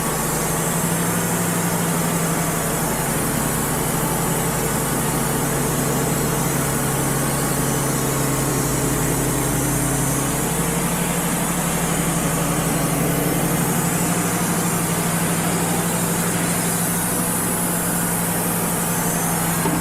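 Wood-Mizer LT35 portable sawmill running steadily: its diesel engine's even hum with a high hiss above it.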